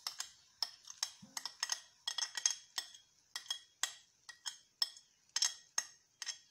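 A spoon clinking and scraping against a plate and the rim of a steel pan while grated banana is scraped off into the pan: sharp, brief ringing clinks at an uneven pace of about three a second.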